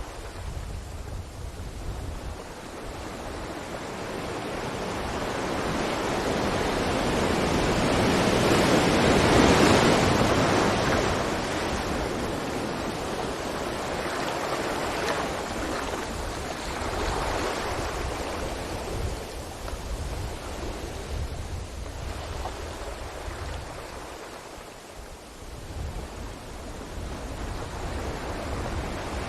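Ocean waves breaking on a beach: a steady wash of surf that swells into one big breaking wave around ten seconds in and slowly recedes, with smaller swells after and a low rumble underneath.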